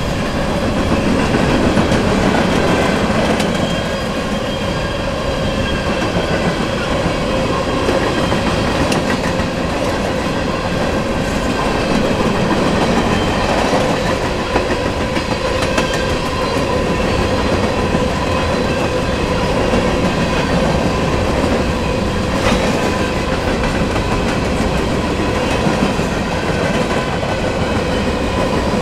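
Covered hopper cars of a freight train rolling past at a steady speed: a continuous rumble and clatter of steel wheels on the rails and joints, with a thin steady squeal from the wheels running through it.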